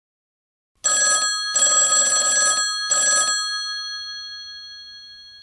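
Telephone bell ringing: three rattling bursts starting about a second in, the last one short, then the bell's tone fading out.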